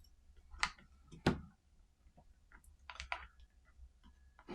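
Several sharp clicks and taps of a tool working against a Matterport Pro3 quick-release clamp tripod mount while it is being pried apart, the loudest about a second in and a small cluster near the end.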